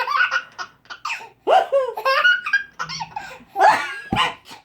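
Baby laughing in hearty belly laughs, several bursts in a row.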